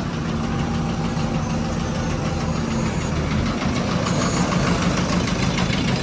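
Construction machinery engine running steadily with a constant low hum.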